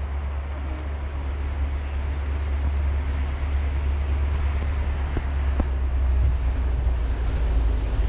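A freight train's low rumble, growing gradually louder as it approaches, with a couple of brief clicks about halfway through.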